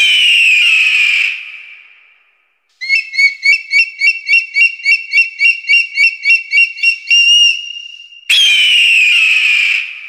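Eagle calls: a harsh, high scream that falls in pitch and fades, then a rapid chattering run of piping notes at about four a second ending on a held note, then another falling scream near the end.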